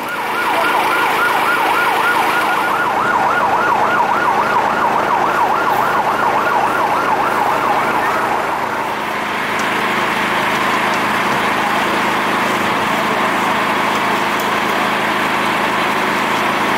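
Emergency vehicle siren in a fast yelp, about four to five rising-and-falling sweeps a second. About halfway through it gives way to a steady, loud even noise.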